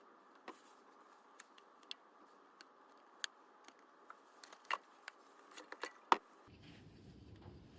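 Faint, irregular light clicks and taps, about fifteen over several seconds, with the sharpest one near the end.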